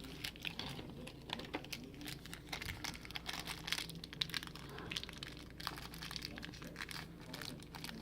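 Plastic blind-bag packaging crinkling and rustling as it is handled, with small irregular crackles and ticks throughout.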